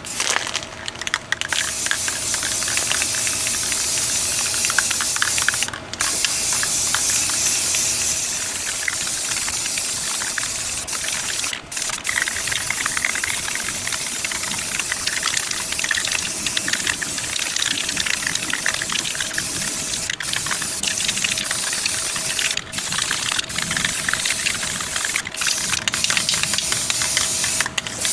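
Aerosol spray-paint can hissing in long, steady sprays on a metal condenser grille. The spray stops briefly about six seconds in, near twelve seconds, and several times after twenty seconds.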